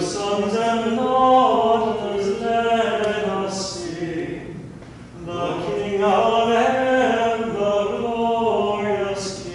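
Unaccompanied chant-like singing of a slow melody in two long phrases, with a brief breath between them about five seconds in.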